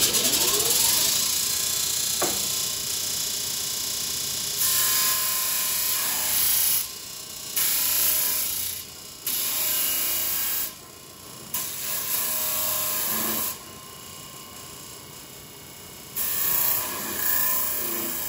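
Pedestal disc sander running, with the end of steel square tubing pressed against the abrasive disc in repeated passes of a couple of seconds each. Each pass brings a loud grinding hiss that throws sparks, and between passes the sander runs unloaded and quieter.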